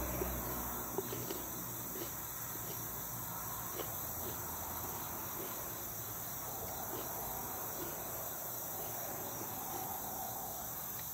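Steady high-pitched chirring of insects in the background, with a few faint crunching clicks of a crisp green pepper being chewed, mostly near the start.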